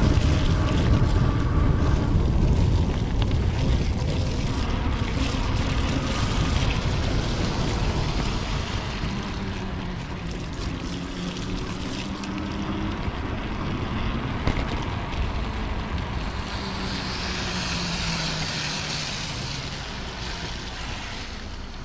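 Wind buffeting the bicycle-mounted camera's microphone over the hiss of bicycle tyres on wet, slushy pavement, with road traffic passing. The rumble eases as the bike slows toward the intersection, and a higher wet hiss swells near the end.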